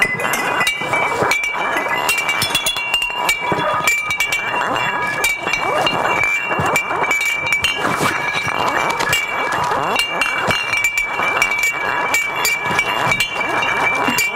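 Recyclable cans and packaging being handled and shaken, a dense run of clinks, rattles and crinkles over a steady high ringing tone.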